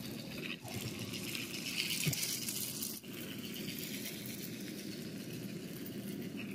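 AA-battery toy Thomas train running on plastic track, its small motor whirring under a steady rattle of plastic wheels and wagons.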